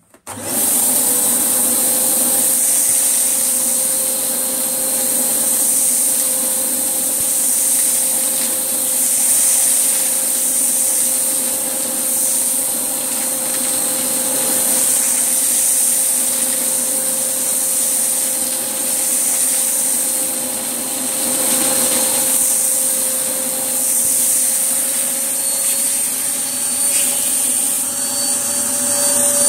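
Hoover Blaze canister vacuum cleaner switching on about half a second in and running with a steady motor whine and airflow hiss. Its pitch climbs slightly near the end, and the owner takes the sound for the vacuum being full or clogged.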